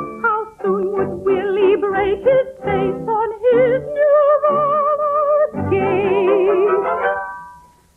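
Operetta singing with strong vibrato: a run of short sung notes, then long held notes, the last one swelling and then fading out shortly before the end.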